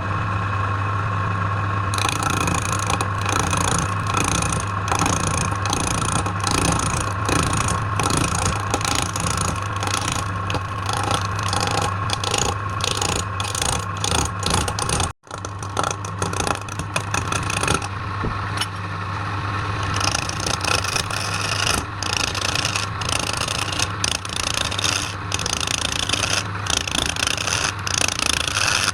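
Electric woodworking machine running steadily with a constant hum, while a tool scrapes against wood in many short, irregular strokes. The sound cuts out for an instant about halfway through, then carries on the same.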